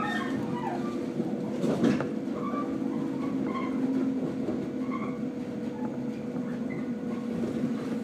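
Inside a JR 115-series electric train running on the line: a steady hum of motors and wheels on rail. A single sharp knock comes about two seconds in.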